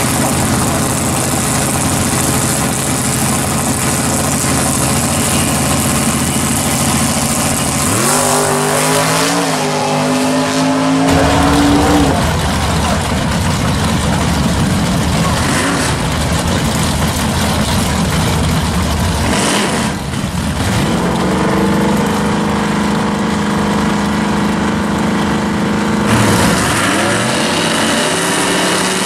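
Drag-racing car engines running loudly at the strip, revving up in rising sweeps about eight seconds in, again around twenty seconds, and once more near the end.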